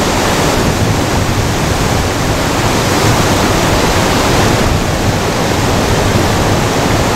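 Ocean surf breaking and washing around the rocks of a beach: a loud, steady rush of water.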